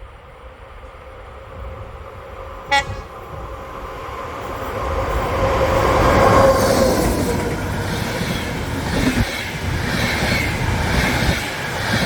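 Passenger train on the line: a short horn toot about three seconds in, then the train's running noise swells and stays loud as it goes by.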